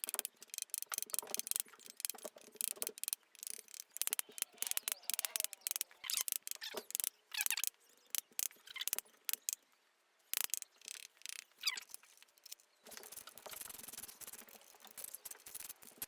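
Hand ratchet clicking in short runs as screws are wound down, with a few short squeaks in between.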